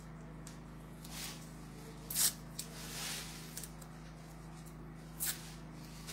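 Lace and cloth being handled, giving a few short rustles, the loudest about two seconds in, over a steady low hum.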